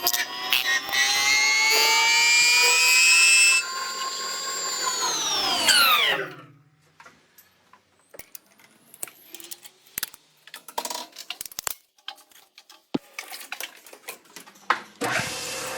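A power tool's motor running at high speed with a steady whine, then released and spinning down in falling pitch about six seconds in. Scattered clicks and knocks of handling follow, and the motor starts up again near the end.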